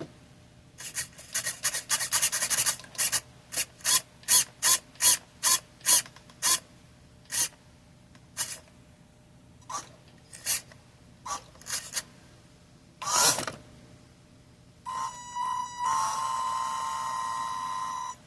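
RC crawler's electric drivetrain, a 370 brushed gearbox motor, blipped in short bursts of motor and gear whir about a dozen times, then run steadily for the last few seconds with an even whine.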